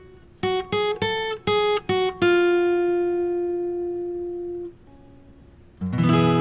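Background music on acoustic guitar: about eight quick plucked notes, then one note left ringing and fading, a short lull, and a fuller strummed chord near the end.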